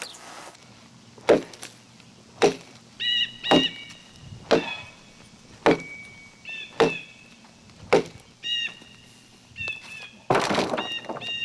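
An axe chopping into a log, about one stroke a second, with short high chirps heard between some strokes. Shortly before the end comes a rustling crash as a branch is thrown onto a wagon.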